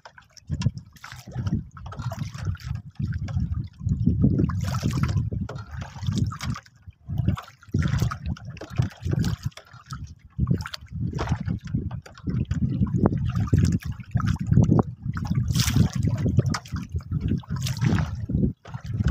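Water sloshing and trickling around a small wooden boat as a wet fishing longline is hauled up by hand, with uneven gusts of wind on the microphone.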